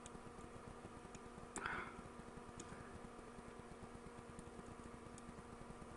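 Homemade resistance soldering tweezers with pencil-graphite electrodes heating a joint on a potentiometer lug: one short click and crackling hiss about one and a half seconds in, over a faint steady electrical hum with a few light ticks.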